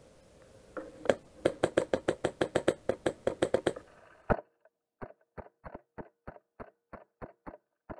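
A rapid string of sharp airsoft shots, about seven clacks a second for some three seconds. The background then drops away suddenly, and the same kind of clacks go on more slowly, about three a second, over a faint steady hum.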